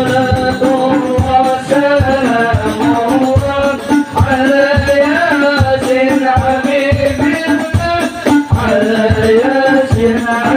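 Hadroh ensemble: several rebana frame drums struck by hand in a fast, dense interlocking rhythm, with a man singing a melody into a microphone over them.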